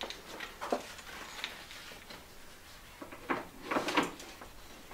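A soft Gas Bag fuel bladder and its straps being handled and fitted onto a motorcycle's metal pannier rack: scattered rustles and small clicks, busiest between about three and four seconds in.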